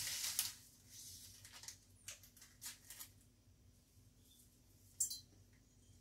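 Dry spaghetti snapped by hand, a series of sharp cracks and crackles with broken pieces dropping into a glass bowl; the loudest snap comes about five seconds in.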